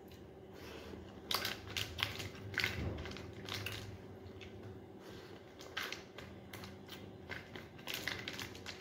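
Close-up eating sounds: chewing and crunching a fried bite of biryani, mixed with fingers crinkling an aluminium foil food tray. The crisp clicks come in two spells, one starting about a second in and another near the end, over a faint steady hum.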